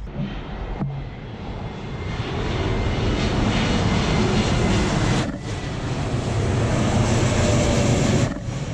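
Twin-engine jet airliner passing low overhead on final approach, its engine roar building from about two seconds in and staying loud. The sound breaks off briefly about five seconds in and again near the end.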